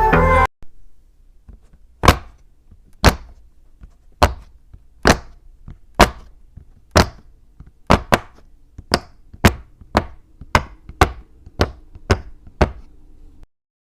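A fidget toy being snapped or clicked over and over: about sixteen sharp clicks. They come about once a second at first and pick up to about two a second near the end.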